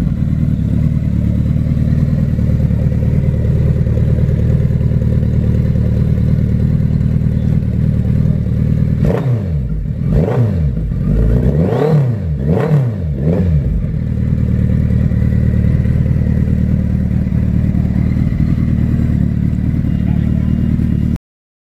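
Suzuki Hayabusa's inline-four engine breathing through an aftermarket SC Project exhaust, idling steadily. About nine seconds in it is revved in four or five quick throttle blips, each rising and falling in pitch, then it settles back to idle. The sound cuts off abruptly just before the end.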